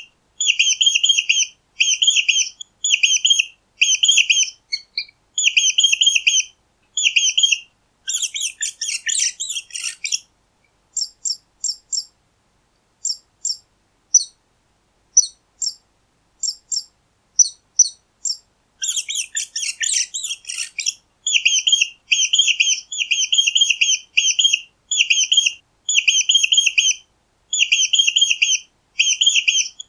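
Mice squeaking: a run of short, high squeaks about twice a second. It is broken in the middle by some ten seconds of scattered single chirps, with a flurry of rapid squeaking at each end of that stretch.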